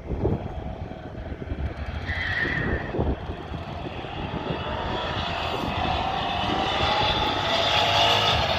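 Drag race cars under hard acceleration down the strip, the engine note slowly rising in pitch and getting louder through the second half over a low rumble.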